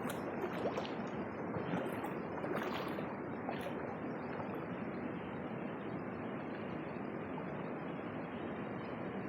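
Creek water rushing and cascading over rocks in a steady, even rush, with a few faint light clicks in the first few seconds.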